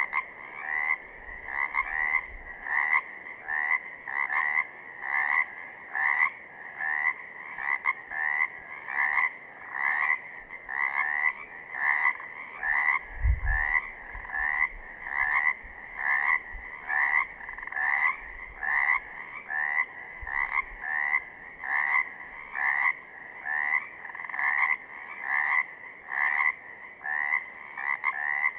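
Pacific chorus frogs (Pseudacris regilla) calling: a steady run of short ribbit-like calls, a little over one a second, each with a slight upward lilt. There is a brief low thud about thirteen seconds in.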